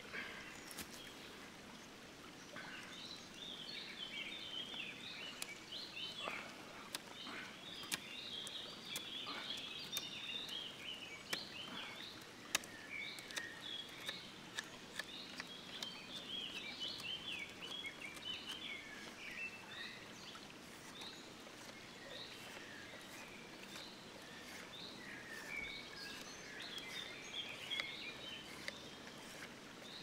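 Birds singing and chirping steadily in woodland, overlaid with irregular sharp clicks and scrapes of a Swiss Army knife blade shaving a wooden stick.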